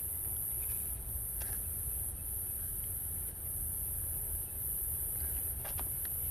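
Steady low rumble with a steady high hiss over it, and a few faint clicks.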